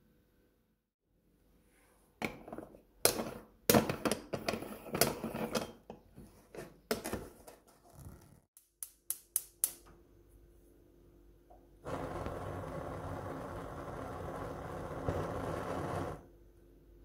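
Metal clatter from handling an aluminium moka pot: a spoon scraping and tapping ground coffee in the funnel, then knocks and clicks as the pot is screwed together, followed by a quick run of sharp clicks. After that comes a steady hiss from a gas hob burner lit under the pot, which stops suddenly near the end.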